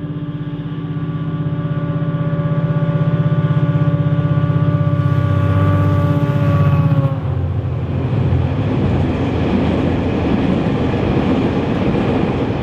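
Irish Rail 071 class locomotive's EMD 12-645 two-stroke diesel engine running steadily as it approaches and passes close by, its note growing louder. About seven seconds in the engine note cuts away, and the rumble and clatter of loaded ballast wagons' wheels on the rails takes over.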